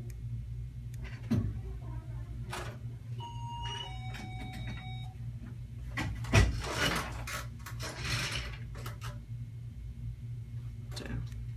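Steady low hum under handling noise. Two short electronic beeps come about three and four seconds in, then a few seconds of rustling and knocks from about six seconds, and a couple of clicks near the end.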